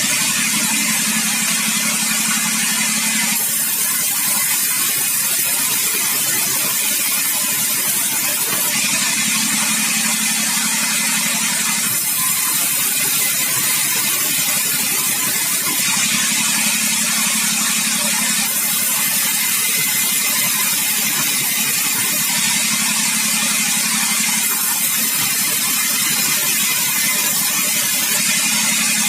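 Sawmill machinery running continuously, a dense mechanical noise whose low hum comes and goes every few seconds.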